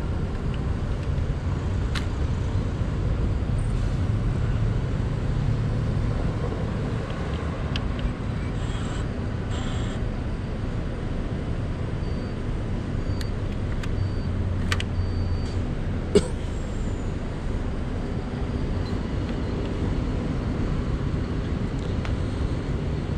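A steady low rumble of street traffic. Over it come a few sharp clicks and, about halfway through, a short run of faint high beeps as the parking pay machine's buttons are pressed.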